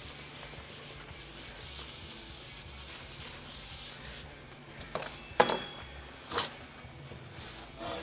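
An old Scotch-Brite pad scrubbing a Bondo mixing board wet with reducer, a light steady rubbing. About five seconds in the scrubbing gives way to three sharp knocks, one with a brief ring, as the board is handled, and a louder knock comes right at the end.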